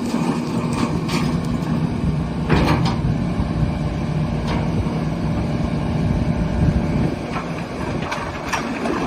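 Kubota 185-3 excavator's diesel engine running steadily, with a few sharp metallic clanks.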